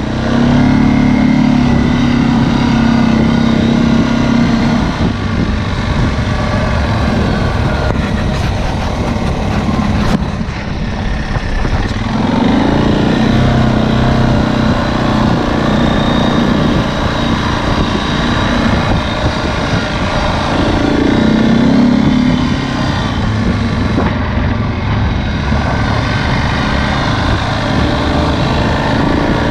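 ATV engine running under way, heard from on board, its pitch climbing and falling as the throttle is opened and eased off.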